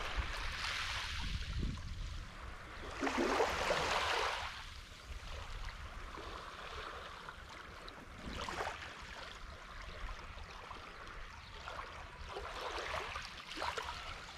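Small waves washing up on a sandy, pebbly shore, the wash swelling and easing four times.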